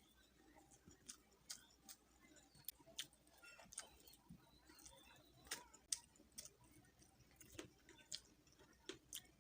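Quiet eating sounds: a person chewing, with irregular soft mouth clicks and smacks, one or two a second.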